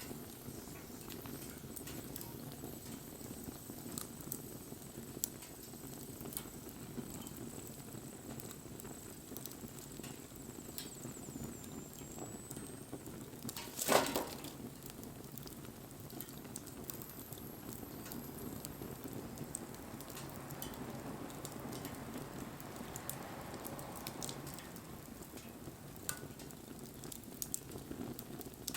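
Wood fire burning, with a steady low rush and scattered small crackles, and one loud pop about halfway through.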